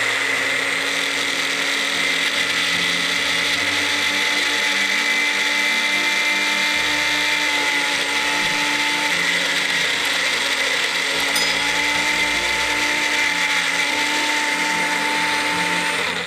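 Magic Bullet personal blender running with a steady whine as it purées chopped onion, cilantro and green chilies. It cuts off at the end.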